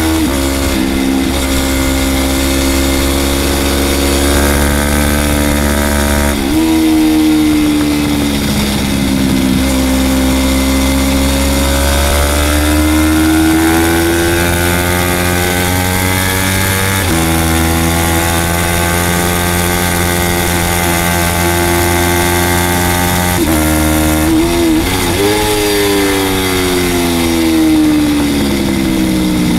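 Small-displacement race motorcycle engine at high revs on track, loud and steady. Its pitch climbs under acceleration and falls off under braking, with sudden drops at upshifts about 17 seconds in and quick jumps at downshifts about 6 and 24 to 25 seconds in.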